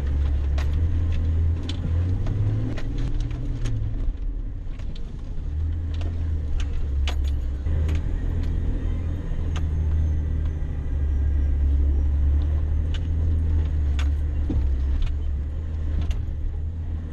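Toyota Land Cruiser HZJ105's 1HZ diesel six drones steadily, heard from inside the cabin as the truck jolts along a rough dirt track. Frequent irregular clicks and rattles come from the vehicle and its load knocking about over the bumps.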